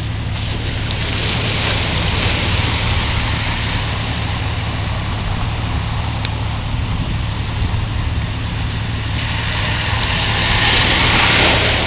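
Heavy rain falling steadily on a flooded parking lot. Near the end a pickup truck drives through the standing water, and its tyres spraying through the flood make the loudest part.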